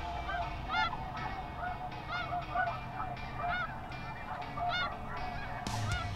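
Snow geese calling in a crowded chorus: many short, high, arched honks overlapping, several a second.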